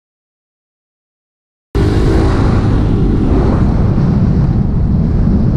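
Dead silence for about the first second and a half, then sound cuts in abruptly: wind rumbling on a helmet-mounted microphone over a Kymco scooter running as it rides.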